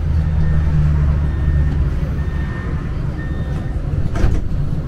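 Steady low rumble inside a tram, heavier in the first couple of seconds, with faint short high beeps now and then and a single sharp knock about four seconds in.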